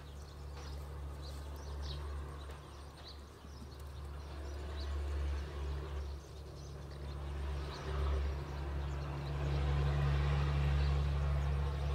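A small engine running with a steady low drone that swells a little louder in the second half, with faint high chirps now and then.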